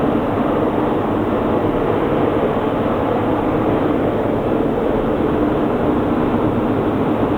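Steady, loud industrial rumble and roar of aluminum-plant machinery, unbroken throughout.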